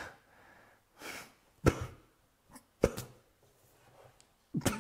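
A man's stifled laughter: a handful of short snorts and breathy huffs through the nose, about a second apart.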